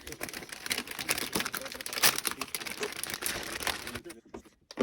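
Plastic packaging crinkling and rustling as computer parts are unpacked by hand: a dense run of small crackles, loudest about two seconds in, with a brief lull near the end.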